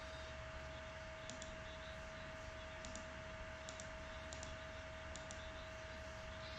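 Five pairs of faint, sharp clicks, each pair quick, spread over a few seconds, over steady hiss and a constant electrical hum tone.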